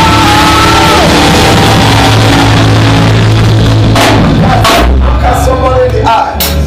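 Loud church praise-band music: a steady bass line and a held, gliding melody over a drum kit, with drum and cymbal hits coming through more sharply in the second half.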